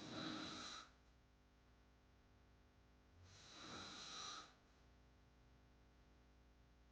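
A sleeping woman snoring open-mouthed: two snoring breaths about three seconds apart, each lasting about a second.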